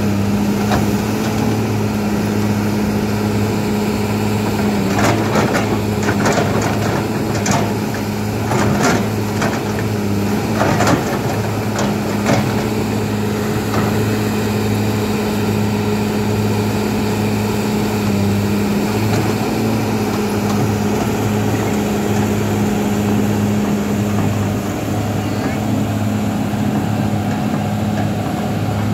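Kobelco SK200 hydraulic excavator's diesel engine running with a steady drone as it digs mud from the riverbed. Between about five and twelve seconds in there is a run of sharp knocks and clanks.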